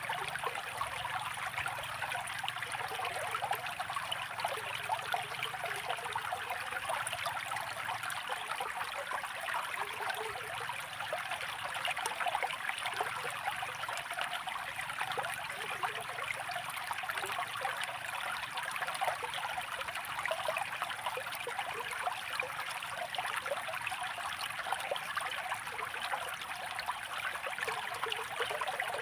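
Water of a small stream flowing steadily, a continuous busy trickling and splashing.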